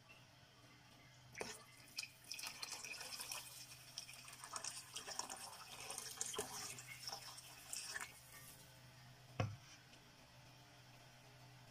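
Water poured in a stream into a stainless-steel pot of tomato okra stew, splashing for about six seconds, with a single sharp knock near the end.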